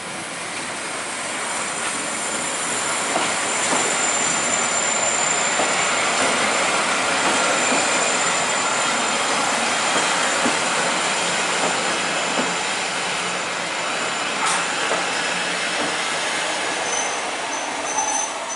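Train Jaune's vintage Z 100 electric railcars rolling slowly into the station on the neighbouring track: a steady rumble and rattle of wheels and running gear that swells as the cars come alongside, with a thin, high wheel squeal strongest a few seconds in and a single sharp clack near the end.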